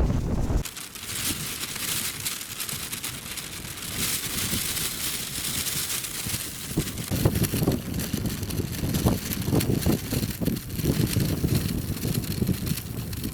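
Strong gusting blizzard wind buffeting the microphone over a steady high hiss. A heavy low buffeting cuts off under a second in, and irregular low gusts return from about halfway through.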